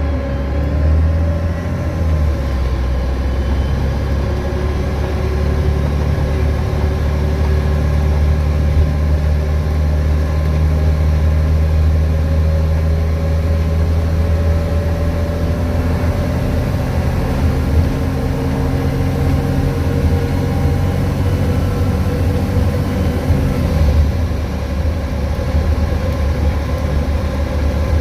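VDL DB250 double-decker bus's diesel engine running under way, its note stepping and gliding up and down as the bus changes gear and speed, with the hoover-like whine of its electric cooling fan.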